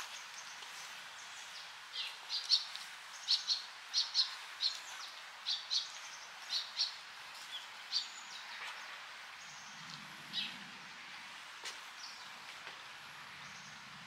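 A stream flowing steadily, with a small bird giving a run of short, high chirps, singly and in quick pairs, from about two to eight seconds in and a few more after.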